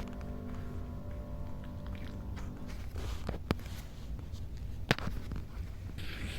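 Small Pomeranian–Japanese Chin mix dog snoring and breathing in its sleep: a low steady snore, two sharp mouth clicks about a second and a half apart, and a short breathy snort near the end.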